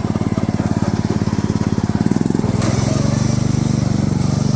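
Riding lawn mower engine running with a fast, even pulse. Its note changes about halfway through, with a short click.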